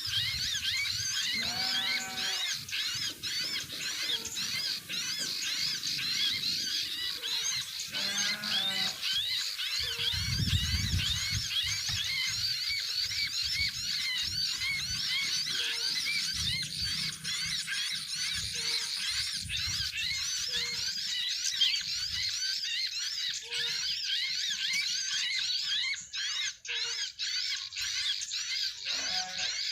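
Many small birds chirping densely and continuously, a thick mass of short high-pitched chirps with a few lower calls breaking in now and then.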